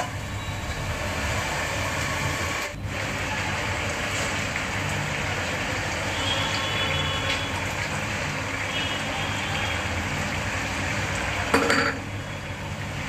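Steady rushing of a lit gas stove burner under a pot of simmering curry, with a short clatter near the end as the fish goes into the pot.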